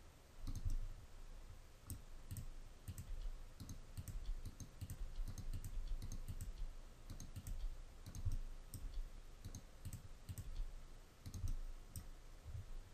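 Computer mouse clicks and keyboard key presses, scattered and irregular, with soft low knocks under them.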